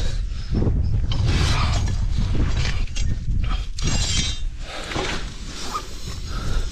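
Metal clinks and rattles of a car jack and hand tools being worked, over heavy wind rumble on the microphone.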